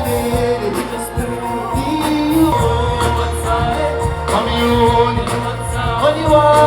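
Pop music with a singing voice over a steady deep bass line, played loud.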